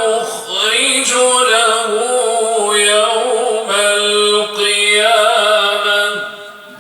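Male voice chanting the Quran in melodic tajweed recitation, drawing out long held notes with wavering ornaments. The phrase fades out about six seconds in.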